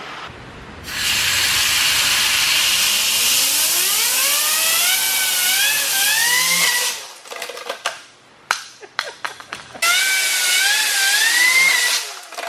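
Compressed air hissing from a blow gun into a 3D-printed compressor wheel spinning on a fidget-spinner bearing; the wheel's whine rises in pitch as it spins up. The air cuts off about seven seconds in, scattered clicks follow, and a second blast about ten seconds in brings the rising whine back.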